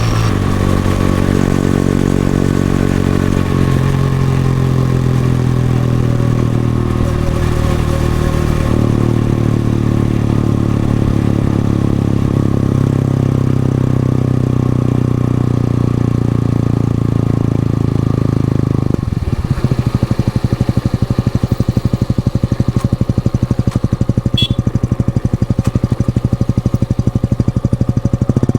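Exhaust of a stock Yamaha FZ-S V3's single-cylinder engine running on the road at steady revs, its pitch stepping a few times. About 19 s in the note changes to a slower, uneven chugging of separate exhaust pulses as the throttle comes off.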